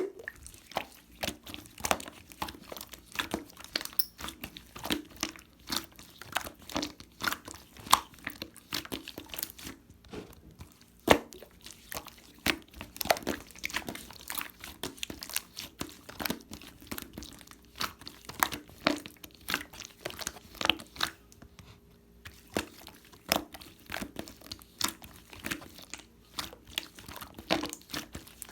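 Slime being squeezed and pressed by hand, giving a dense run of irregular crackling clicks and small pops.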